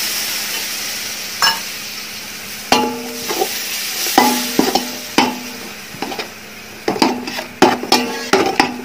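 Curd sizzling in hot oil with fried onions and spice powders, the sizzle slowly fading. A perforated metal skimmer stirs and scrapes it in a metal pot, knocking the pot so that it rings briefly, many times from about three seconds in.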